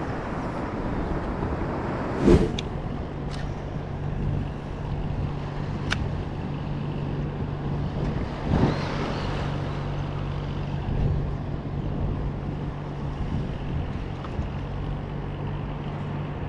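Wind on the microphone and sea water around a kayak, with a steady low hum starting about three seconds in and two short thumps, one near the start and one about halfway through.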